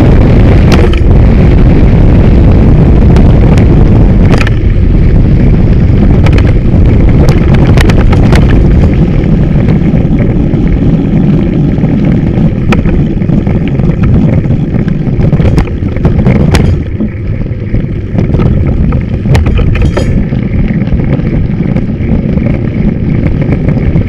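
Heavy wind buffeting on the camera microphone of a mountain bike riding down a gravel road, with the bike rattling and knocking over the rough surface. The rumble eases somewhat in the last third.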